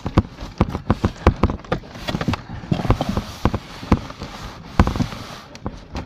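A run of irregular knocks and thumps, a few a second, close and hard.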